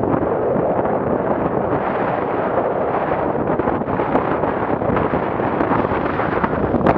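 Strong wind battering the microphone, mixed with the rush of water and spray as a small open motorboat drives through choppy, whitecapped waves. A sharp knock near the end.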